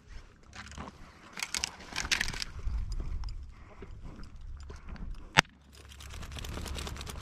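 Wind rumbling on the microphone while someone pushes through dry brush and a juniper bush, with crackling rustles. About five seconds in comes a single sharp crack, the loudest sound.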